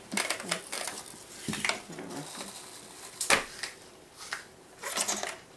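Plastic clicks and clatter from an apple peeler-corer-slicer gadget as its parts and the sliced apple are pulled off it. There is a sharp knock a little past three seconds in, and another burst of rattling near the end.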